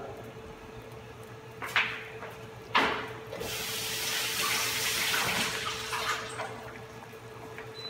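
Kitchen tap running for about three seconds as basil leaves are rinsed under it, after two sharp knocks. A steady low hum runs underneath.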